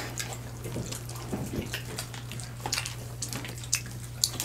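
Wet eating sounds from several people eating a saucy seafood boil and chicken wings by hand: scattered short wet smacks and clicks of chewing, lips and fingers pulling food apart, over a steady low hum.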